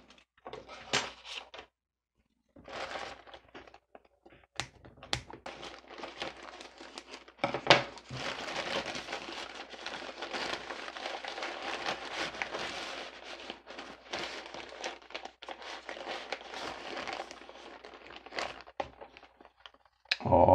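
Grey plastic courier mailer bag crinkling and rustling as it is cut open and handled, with scattered clicks and taps. The crinkling becomes dense and continuous for about ten seconds in the middle, then thins out to a few taps near the end.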